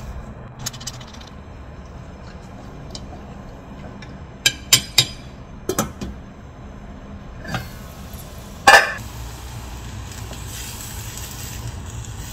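Wooden chopsticks and fishcake skewers knocking and clinking against a stainless steel pot: a quick cluster of sharp clicks about halfway through, then a single louder clank later. A steady low rumble runs underneath.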